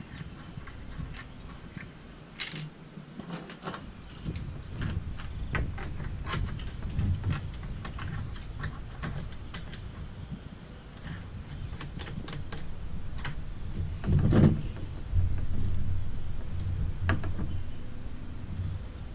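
Scattered light metal clicks and clinks of wrenches and bolt hardware being handled while an outrigger mount's bolts are snugged up, over a low rumble, with a louder thump about fourteen seconds in.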